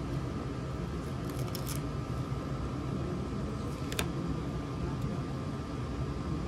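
Paper stickers being peeled off a sheet and pressed onto a paper planner page: a few small clicks and taps, the sharpest about four seconds in, over a steady low room hum.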